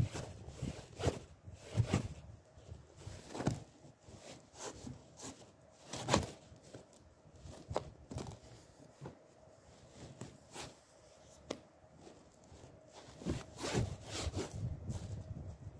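Leather boot stomping and pressing down into an upholstered seat cushion, giving scattered thuds and crunching creaks of the cushion and its springs, with a denser run of crackling near the end.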